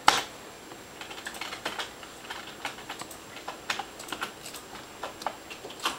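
Computer keyboard being typed on: irregular single keystrokes with short pauses between them, a sharper click right at the start and a louder one near the end.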